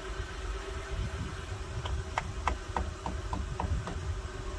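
2007 Honda Odyssey minivan running with a steady low hum, as during a test of its refitted front blower motor. About two seconds in comes a run of about eight sharp ticks, roughly three a second, fading away.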